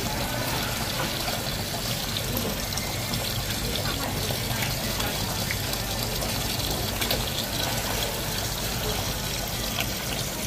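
Running water, a steady rushing hiss, with a few faint clicks over it.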